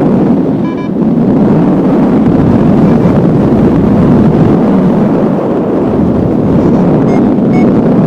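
Strong wind rushing and buffeting over the microphone in flight, loud and steady.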